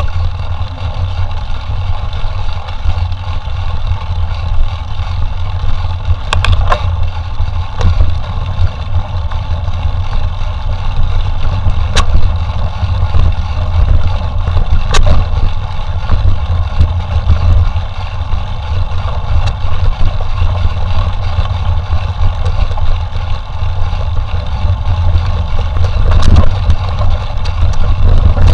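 Steady low rumble of wind on the microphone with the rolling and rattling of a mountain bike being ridden, and a few sharp knocks scattered through.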